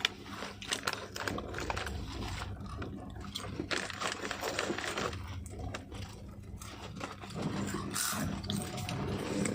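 Inside a moving passenger train coach: a steady low hum with frequent irregular rattling and clicking from the carriage.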